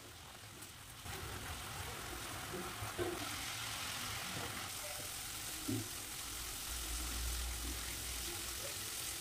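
Wet spice paste sizzling and bubbling in hot mustard oil in a nonstick kadai while it is stir-fried with a wooden spatula, at the stage of frying off the raw smell of the masala. The sizzle grows louder about a second in, with a couple of soft knocks of the spatula against the pan.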